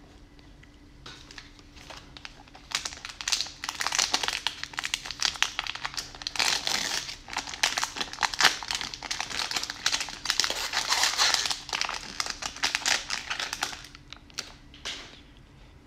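Plastic wrapper of a Topps baseball card fat pack crinkling as it is torn open and handled, with dense fast crackles that run for most of the time and die down to a few clicks near the end.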